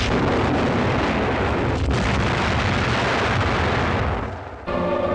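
Artillery shell explosion: one long, dense blast that lasts about four seconds and dies away near the end. Just before the end a pitched ringing, like a bell, begins.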